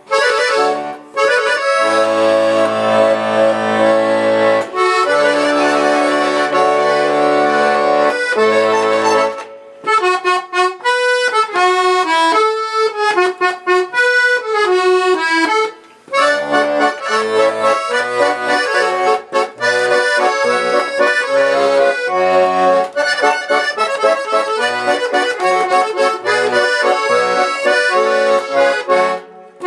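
Russian 'Chaika' garmon (button accordion) playing a folk tune: held chords with bass notes at first, then a running melody over bass, with short breaks about nine and sixteen seconds in. It is a test of the instrument's sound after its restoration, in which about twenty mixed-up reed voices were put back in order.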